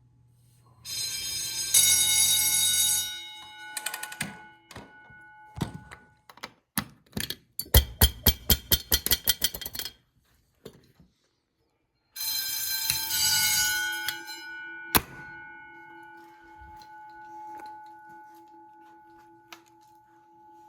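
Fire alarm bell ringing in two short bursts, each lasting about two seconds and then cut off, leaving the gong ringing down slowly. Between the bursts come several sharp knocks and a run of rapid strikes, about four a second.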